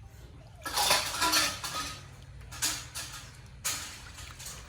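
Water splashing and being poured during a bath, in three or four separate bursts, the first one the longest and loudest, over a steady low hum.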